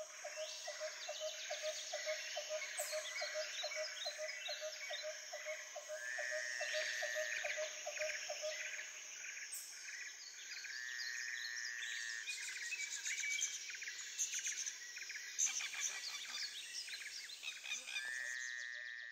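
Forest ambience: many birds chirping and whistling over a steady high insect drone, with a low call repeating about three or four times a second through the first half.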